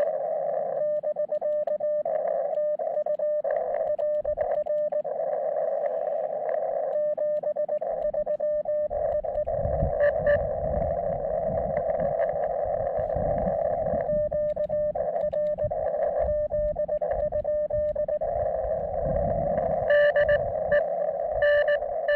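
Morse code (CW) received on a portable ham radio transceiver: a single beep tone keyed on and off in dots and dashes over a steady band of receiver hiss.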